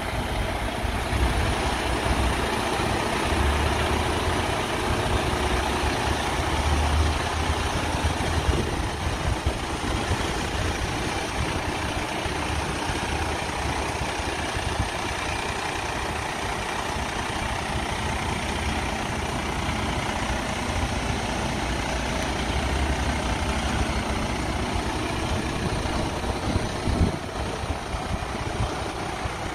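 Heavy diesel truck engine idling steadily, a continuous low rumble.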